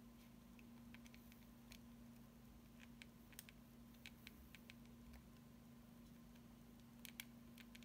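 Faint, irregular clicks of the Minolta 7000 AF's plastic push-buttons being pressed and the camera body handled, over a low steady hum; a few sharper clicks come near the end.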